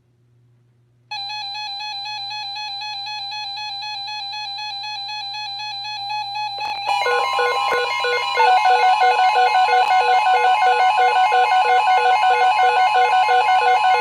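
Electronic emergency alert tones on NOAA Weather Radio, signalling an incoming severe thunderstorm warning. A steady, slightly warbling tone starts about a second in. About seven seconds in, a steady higher tone and pulsing beeps join it, and it gets louder.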